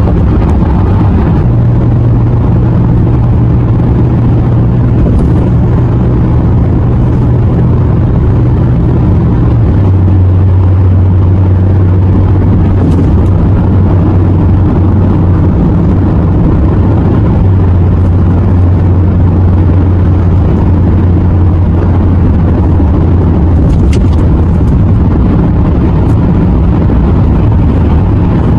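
Steady road and engine noise of a car cruising at freeway speed, heard from inside the cabin, with a low hum that drops in pitch about ten seconds in.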